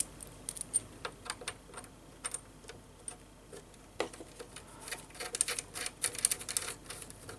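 Small irregular clicks and scrapes of a 4-pin CB microphone plug being seated in a Cobra 148GTL radio's mic jack and its threaded retaining ring screwed down, coming thicker in the second half.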